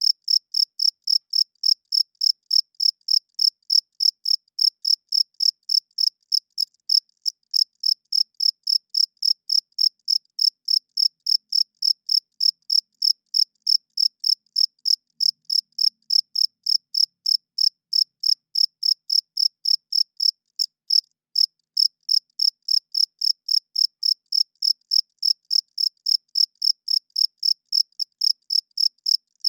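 Male cricket chirping in a quick, even rhythm, a steady train of short, high, clear pulses with no other sound.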